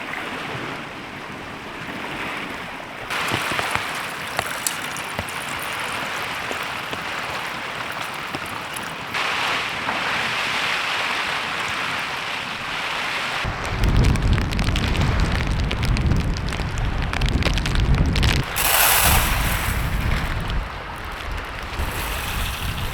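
Heavy rain in a storm, a steady hiss. About halfway through, strong gusts of wind start buffeting the microphone with a heavy rumble.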